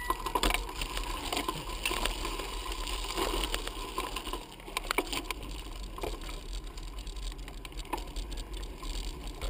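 Ride noise from a handlebar-mounted camera on a bicycle over a rough gravel path: irregular rattling and clicking from the bumps over a steady low rumble.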